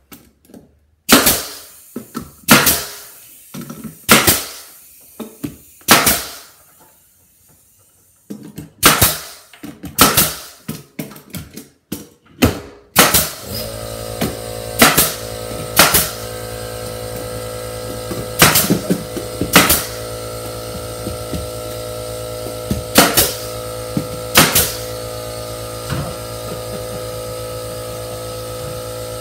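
Pneumatic finish nailer firing nails into wooden crown molding: a dozen or more sharp shots, spaced a second or two apart. About halfway through a steady machine hum comes on under the shots.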